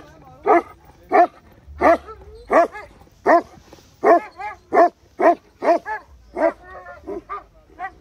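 Dog barking over and over, close and loud, nearly two barks a second.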